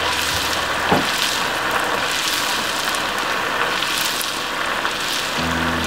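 Rice-flour and coconut-milk batter on a rose cookie mould deep-frying in hot oil, a steady sizzling hiss as the mould is shaken to loosen the cookie. A single light knock comes about a second in.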